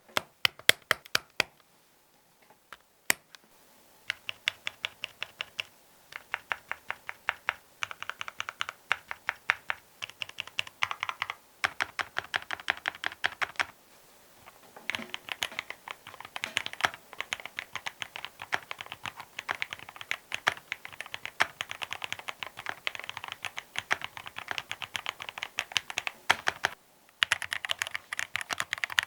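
Mechanical keyboard fitted with Akko x TTC Demon switches being typed on: a few separate keypresses at first, then fast runs of clacking keystrokes with short pauses. From about halfway on, these are typing runs comparing the switches with factory lube against a Krytox 105/205 mix lube.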